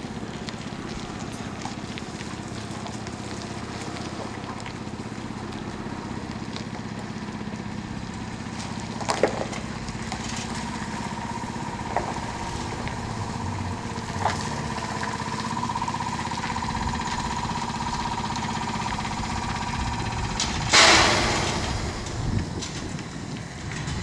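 Trolleybus running in street traffic. A steady electric whine sets in about ten seconds in, with a few sharp clicks along the way, then a sudden loud hiss near the end.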